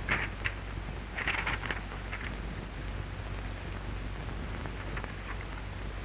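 A few sharp clacks from a manual office typewriter in the first two seconds, then only the steady hiss and low hum of an early sound-film soundtrack.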